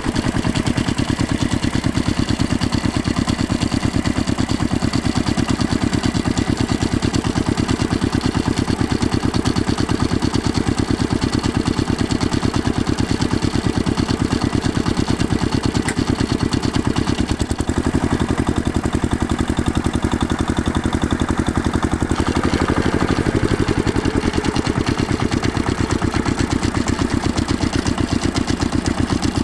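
Farm tractor engine running at a steady idle, a fast, even chugging with most of its weight low down. About two-thirds of the way through the note briefly dips, and a faint falling whine follows soon after.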